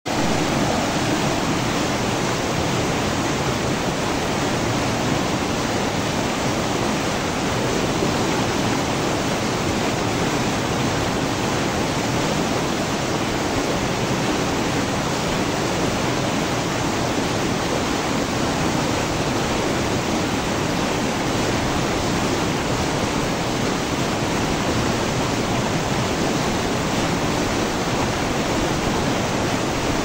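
River rapids spilling in a short white-water cascade between boulders: a steady, unbroken rush of water.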